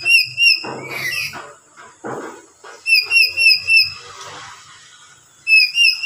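A lory calling: groups of three to five loud, short, whistled notes in quick succession, broken by harsher screeching calls in between.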